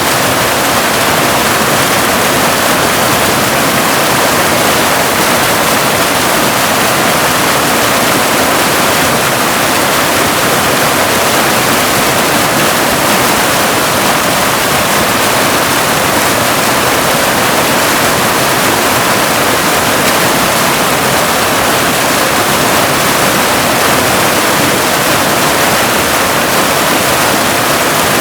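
Waterfall: a loud, steady rush of falling water, an even hiss with little low rumble and no change.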